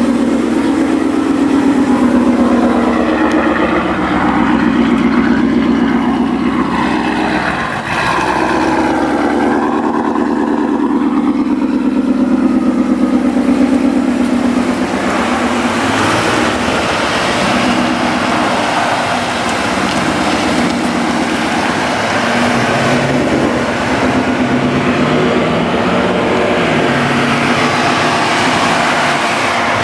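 Car engine and exhaust running under way, a steady drone with the revs rising and falling.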